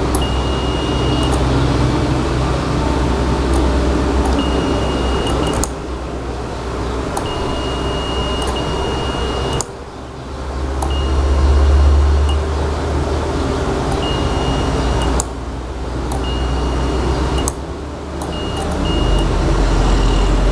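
Steady electrical hum from a homemade sun-tracker control board, broken by four sharp clicks. Each click shifts the level of the hum: relays switching the board between its supplies. A high thin tone sounds on and off.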